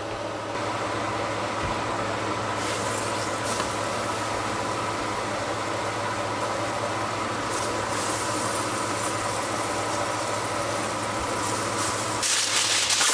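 Puffball mushroom slices frying in butter in a pan: a steady sizzle over a low hum, briefly louder near the end as the slices are moved in the pan.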